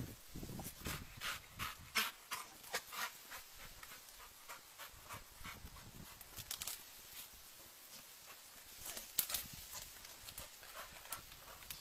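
A dog panting, with irregular short scratchy clicks: a busy run in the first three seconds and another cluster about nine seconds in.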